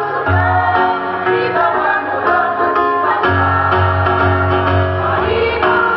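Women's choir singing over an instrumental accompaniment with a low bass line that changes every second or so.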